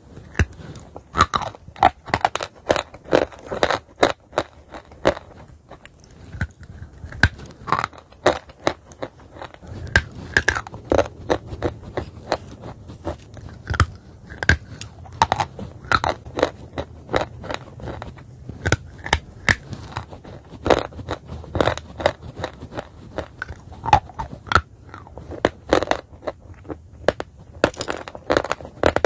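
Chalk being bitten and chewed close to the microphone: a dense, irregular run of sharp crunches and crackles, several a second.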